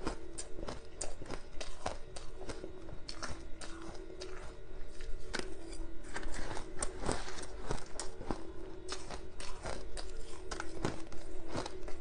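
Crushed ice being bitten and chewed close to a lapel microphone: irregular, sharp crunches follow one another throughout, with a faint steady hum beneath.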